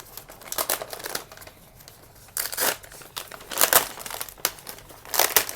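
Packaging being handled: paper or plastic crinkling and rustling in irregular bursts, with a sound like tearing, as the next boxed model car is dug out and unwrapped.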